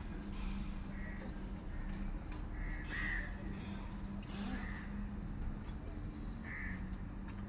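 Crows cawing: several short caws a second or two apart, over a steady low hum.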